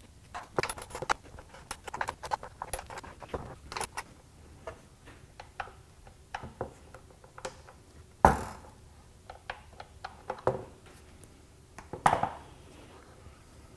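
Small metallic clicks and clinks of a torque wrench working the short anti-slosh tray and baffle bolts on an aluminium oil sump, with two louder knocks, about eight and twelve seconds in, the second as the wrench is set down on the wooden bench.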